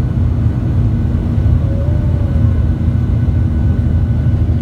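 Cabin noise of a Boeing 737-800 heard from inside the cabin: the CFM56-7B turbofan engines and the airflow making a steady low rumble, with faint steady tones above it.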